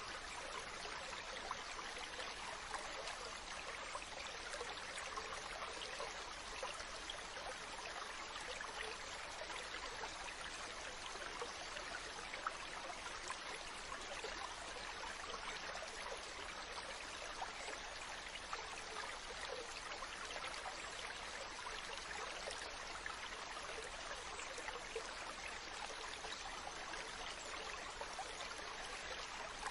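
Mountain stream running steadily over rocks: a continuous rush of water with fine splashes and trickles, unchanging throughout.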